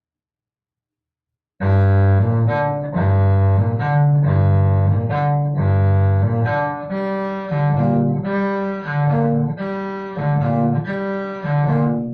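Cello bowing sustained low notes that alternate among a few pitches in a repeating pattern: a string-crossing bowing study on a G minor chord (G, B flat, D). It starts after about a second and a half of silence.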